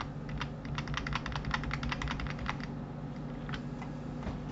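Computer keyboard and mouse clicks: a quick flurry of keystrokes about a second in, then a few scattered single clicks, over a low steady hum.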